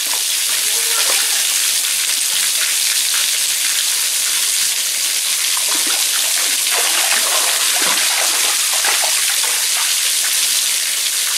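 Small waterfall trickling and splashing into a shallow rock pool: a steady, even hiss of falling water.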